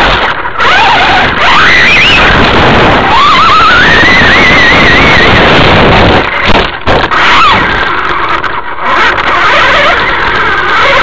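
Traxxas Rustler VXL's brushless electric motor whining as it speeds up, the pitch climbing about three seconds in, over the loud rumble and rattle of the truck running across grass, heard from a camera mounted on its body shell.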